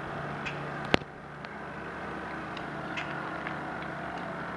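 Radio-controlled model boat running on the water: a steady motor hum, with sharp clicks scattered through it, the loudest about a second in.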